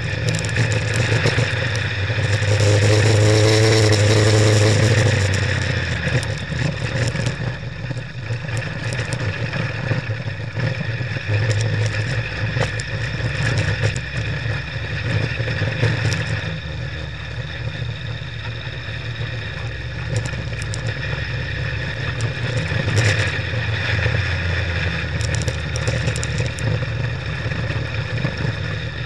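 Cox Bugster race buggy's engine heard from inside the cabin, running under hard throttle over a dirt track, loudest and highest in pitch a few seconds in, then running on steadily. Frequent clatter and knocks from the car jolting over rough ground.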